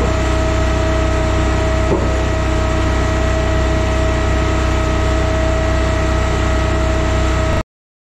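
Timberwolf Alpha 6 hydraulic log splitter's engine running steadily, with a single knock about two seconds in. The sound cuts off suddenly near the end.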